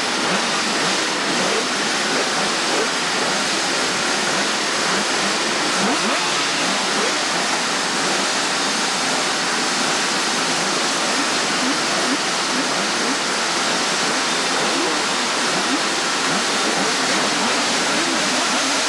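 A grid of 250cc two-stroke racing motorcycles running and being revved while waiting for the start, a dense steady blare of many engines with short blips rising and falling in pitch.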